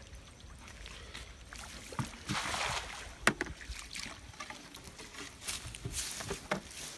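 A cast net swishing out and landing on the pond surface about two and a half seconds in, a brief hissing splash, with a few sharp knocks around it and scattered rustling near the end.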